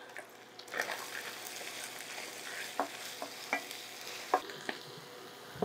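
Ground beef, onions and green peppers sizzling in a hot enamelled pan while ketchup is stirred into them with a wooden spoon. The spoon knocks and scrapes against the pan several times over a steady sizzle.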